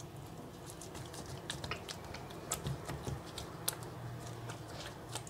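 Fork tines clicking and scraping lightly on a glass baking dish and over raw dough as beaten egg yolk is spread across it, with fingers smoothing it. The ticks come faint and irregular, several a second.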